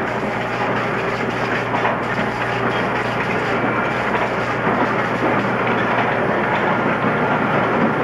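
Sawmill log debarker at work: wheels studded with carbide cutters passing over a log, grinding off bark and sand. A dense, steady mechanical din over a constant low hum, with scattered knocks.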